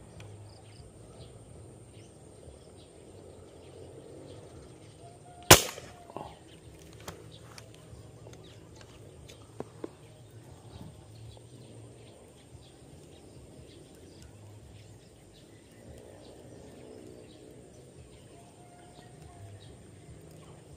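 A single air-rifle shot, one sharp crack about five and a half seconds in, fired at tilapia in a pond, with a few faint clicks in the seconds after it.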